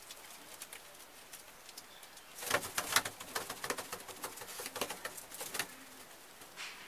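Domestic pigeons in a loft: a burst of rapid, irregular clattering for about three seconds in the middle, then faint low cooing near the end.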